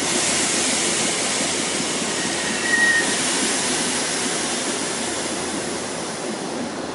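Stainless-steel Nankai commuter electric train standing at the platform with its doors open, its onboard equipment giving a steady hiss. A short, high squeal comes about three seconds in.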